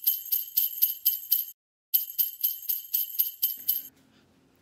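Sleigh bells shaken in a steady rhythm, about four shakes a second, pausing briefly about a second and a half in, then going on and stopping near the end.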